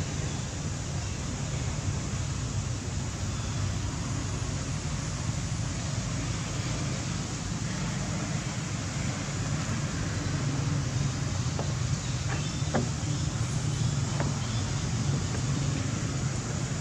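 Steady outdoor background noise with a low rumble, and a few faint sharp clicks about three-quarters of the way through.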